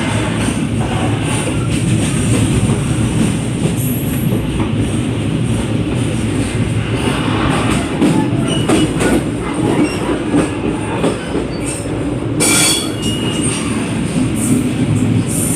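Passenger train running on rails, heard from the open vestibule between carriages: a steady loud rumble with rapid clicking and clatter of wheels and couplings. A brief high-pitched squeal cuts in near the end.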